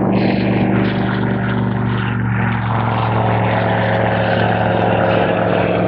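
Just Aircraft SuperSTOL light-sport plane's piston engine and propeller at full power for takeoff, a steady loud drone.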